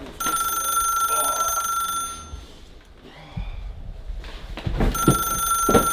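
Telephone ringing: two long electronic rings, each a steady high tone, the second starting about five seconds in. Low rumbling and a few knocks fill the gap between them.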